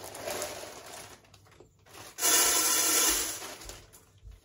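Malt grain tipped from a bowl into a plastic bag: the bag rustles, then about two seconds in the kernels pour in with a loud, even rush lasting about a second.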